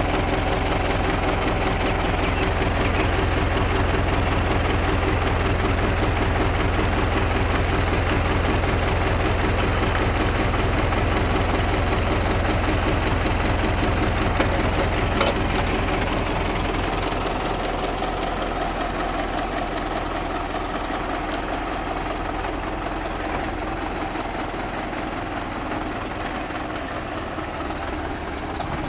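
Old farm tractor's diesel engine running steadily close by, with a low, even throb. It gets a little quieter about halfway through.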